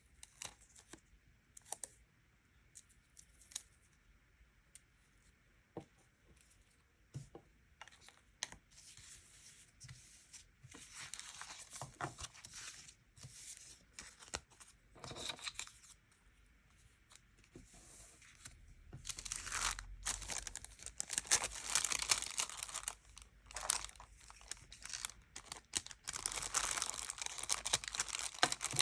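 Stickers and paper or plastic sheets handled at close range: a few light taps and clicks at first, then from about ten seconds in, and almost without pause after about nineteen, long stretches of crinkling and tearing.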